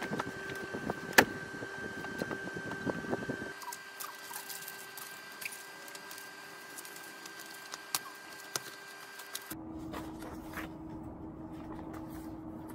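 Paper sheets and notebooks being handled, shuffled and stacked on a carpeted floor: scattered rustles and light knocks, the sharpest about a second in, over a faint steady hum.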